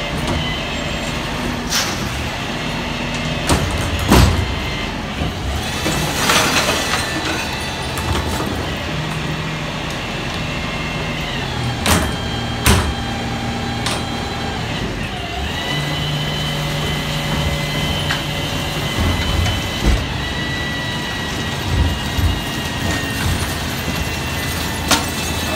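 Rear-loader garbage truck running its compactor: the engine runs under a steady hydraulic whine that shifts in pitch a couple of times, with scattered sharp metal clanks from the bin lifter and packer.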